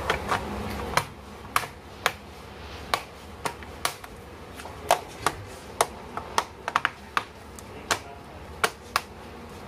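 Sharp plastic clicks, about twenty at uneven intervals, as the ASUS VivoBook X541UA's plastic top case is pressed down by hand around the palm rest and keyboard, seating its clips.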